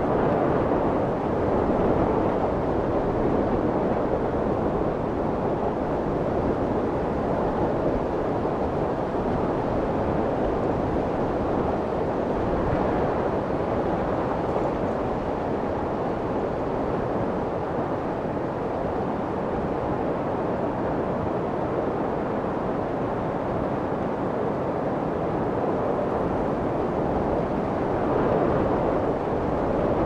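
Steady rushing cabin noise of a light aircraft in cruise flight: engine and airflow blended into an even hiss with only slight slow swells.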